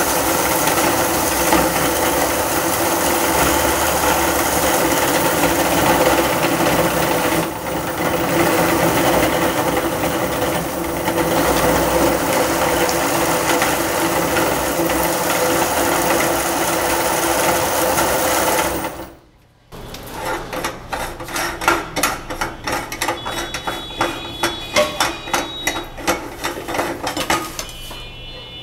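Motor-driven meat grinder running steadily, its auger turning with a loud mechanical hum, until it cuts off suddenly about two-thirds of the way in. It is followed by a string of sharp metal clicks and clinks, a few of them ringing briefly, as the grinder's retaining ring and cutting plate are unscrewed and taken off.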